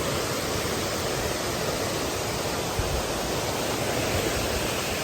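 Steady rushing of a mountain brook's cascading water, an even unbroken noise.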